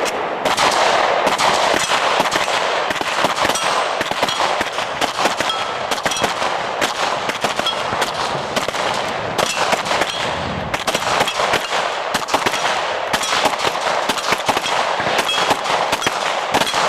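A pistol fired over and over in a long, fast string of shots at steel plate targets, with short metallic pings from the plates as they are hit.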